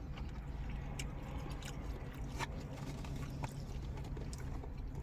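A man chewing a slice of pizza, with wet mouth clicks and smacks every second or so over a steady low hum.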